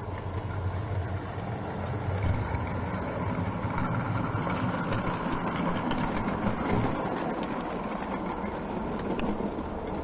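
A model railway goods train running past close by: a steady rolling rumble of locomotive and wagon wheels on the track with scattered light clicks, louder in the middle as the wagons pass closest.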